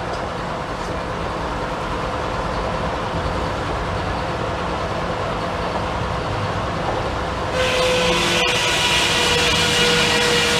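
Engine-driven sawmill with a 64-inch circular saw blade running steadily. About seven and a half seconds in, the sound suddenly gets louder and brighter, with a high ringing whine, as the blade starts into the log.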